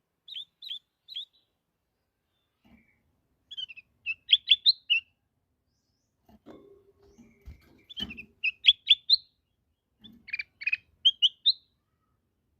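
Kutilang emas bulbul singing in four short phrases of quick, clear whistled notes, the loudest phrases in the second half. A few low knocks and a brief rumble sound between phrases partway through.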